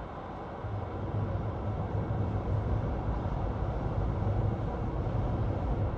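Steady road and tyre rumble inside a moving 2024 Chevy Bolt electric car, with no engine note, getting a little louder about a second in.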